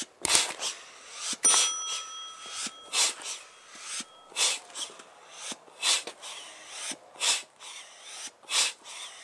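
Bellows foot pump being pressed to inflate an inflatable boat through a hose: repeated puffs of air, roughly one a second. A thin high tone rings for about three seconds starting a second and a half in.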